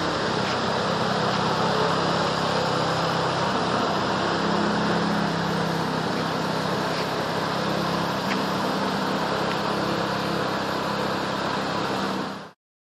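Small engine running steadily, driving the pump that feeds a long spray hose for weed and pest spraying. It cuts off abruptly near the end.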